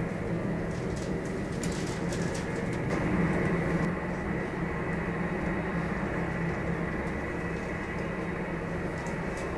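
Boeing 747-400 jet engines running at idle: a steady low rumble with a faint steady whine.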